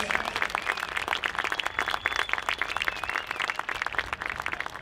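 A small crowd applauding: many hands clapping in a dense, irregular patter.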